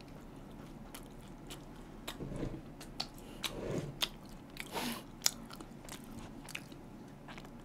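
Close-miked chewing of a toasted steak-and-ham sandwich: soft wet mouth sounds and small clicks of biting, busiest a couple of seconds in.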